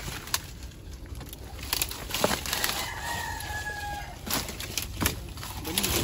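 A rooster crowing once, a drawn-out call of about a second and a half starting a couple of seconds in. Around it come sharp crackles and snaps of dry leaves and dead stalks being pushed about by hand.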